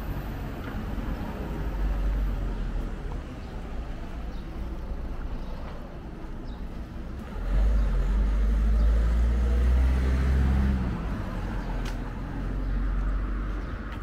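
Street traffic with a motor vehicle's engine passing close by, loudest for about three seconds a little past halfway, over a steady low rumble.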